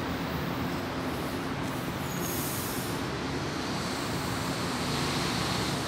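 Metro train standing at the platform with its doors open, its onboard equipment giving a steady low hum over a constant rumble. A short high hiss comes about two and a half seconds in.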